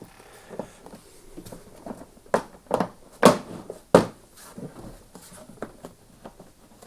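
Plastic knocks and clicks as the motor cover of a Flymo UltraGlide hover mower is handled and clipped into position on the housing: a handful of separate sharp knocks, the loudest in the middle.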